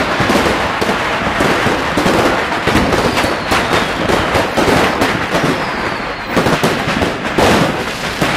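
Firecrackers and fireworks going off without a break: a dense, loud crackle packed with sharp bangs. A faint falling whistle comes through about six seconds in.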